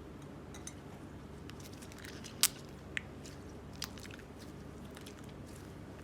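Chalk crunching and crumbling in a few short, sharp cracks, the loudest about two and a half seconds in, over a steady low hum.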